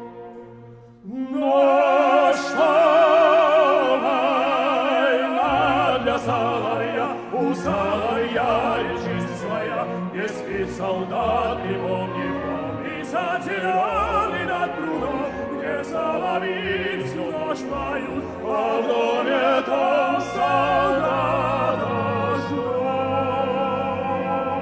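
Symphony orchestra with operatic singing. A soft held chord swells into full, loud music about a second in, and rich vibrato runs through it.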